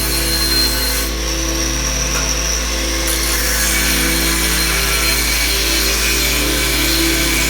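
A power tool running steadily, over a constant low hum.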